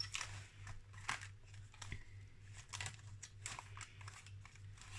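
Paper and card rustling with soft taps as a small handmade journal is handled and its pages leafed through, over a faint steady low hum.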